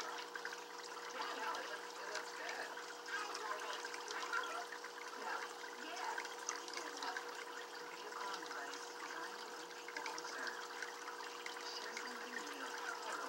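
Steady trickling, bubbling water with many small irregular splashes and a constant hum underneath.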